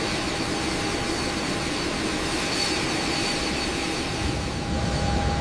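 Jet airliner's engines running steadily, a rushing noise with a high whine over it, the low rumble growing near the end.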